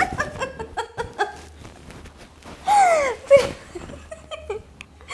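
A man and a woman laughing hard in fits and bursts, with a loud high-pitched squeal of laughter sliding down in pitch about three seconds in.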